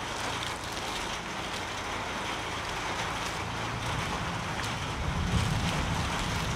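Steady rain falling, an even hiss of drops. A low rumble builds underneath it in the last couple of seconds.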